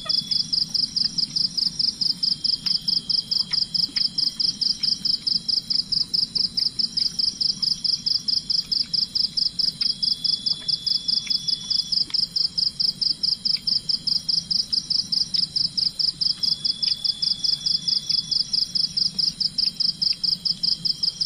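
Insect calling, most likely a cricket or katydid: a loud, even, high-pitched pulsed chirp at about four pulses a second, with fainter drawn-out high notes from other callers every few seconds.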